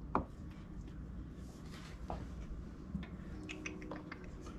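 A few faint, scattered taps and clicks of a knife cutting hard-boiled eggs on a plastic cutting board and of egg halves being set into a plastic egg tray, over a low room hum.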